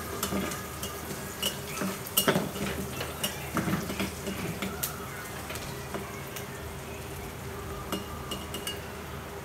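A metal cooking utensil clinking and scraping against a pan as food is stirred, over a light sizzle of frying. The clinks come thick in the first half and thin out later.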